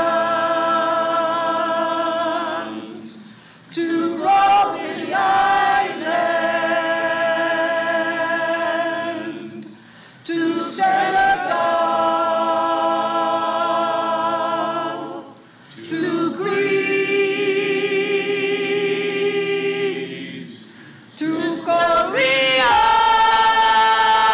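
A mixed group of men's and women's voices singing together a cappella, holding long sustained notes in phrases of five or six seconds, each ending in a brief pause for breath.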